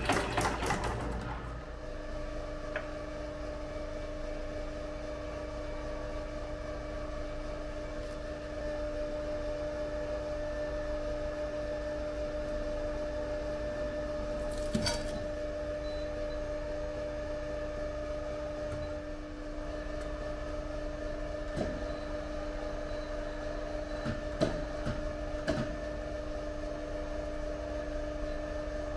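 Compression testing machine running with a steady two-tone hum, with a few sharp clicks in the second half. A metallic clatter dies away in the first second.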